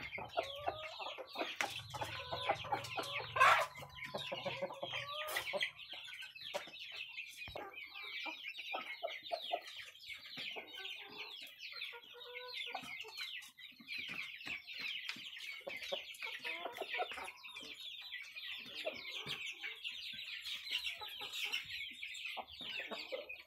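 Native village chickens (ayam kampung) clucking as they peck at feed in a trough, with one loud call about three and a half seconds in. A steady high-pitched chatter runs underneath.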